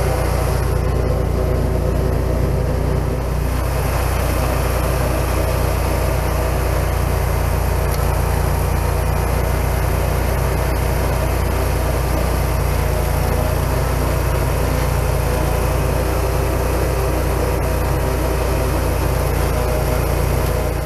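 Gas-engine stump grinder running steadily at working speed, its cutter wheel grinding a shallow trench through soil and tree roots.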